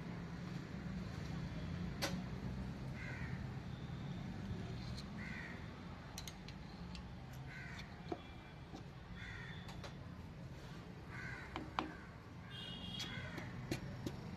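Crow cawing again and again, one call about every two seconds, over a steady low hum. A few sharp knocks and clicks from the engine work come in between.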